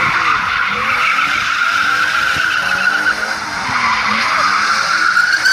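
Tyres of a BMW E34 535i squealing without a break as the car drifts, with the M30B35 straight-six engine heard faintly beneath, its pitch rising and falling as it revs.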